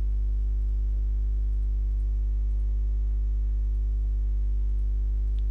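Steady electrical mains hum: a low hum with a stack of buzzing overtones above it, constant in level.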